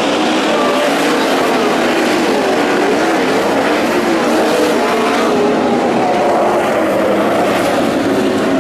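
Several sprint car engines running at racing speed together, their overlapping pitches rising and falling as the cars go around the track.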